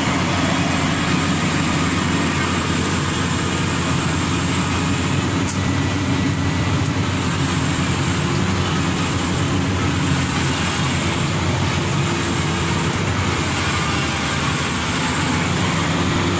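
Maxxi Bimo Evo Xtreme rice combine harvester running, its engine and machinery making a loud, steady drone.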